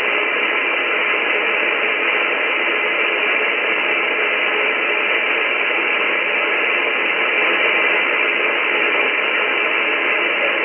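Icom IC-7300 HF transceiver on the 10-meter band giving out a steady, even hiss of band static through its speaker, cut off above about 3 kHz, with no station coming through.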